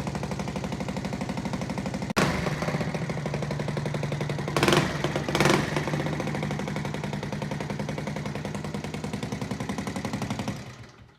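Suzuki LT230E QuadRunner's single-cylinder four-stroke engine running with a rapid, rough exhaust beat, briefly revved twice about halfway through, with a short break about two seconds in; it dies away near the end. The owner believes the engine's bottom end is failing.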